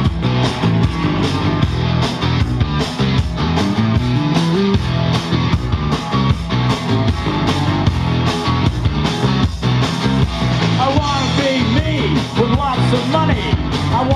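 Live rock band playing loud through a PA: electric guitars, bass and drums in an instrumental break with a steady beat. A sliding melody line comes in near the end.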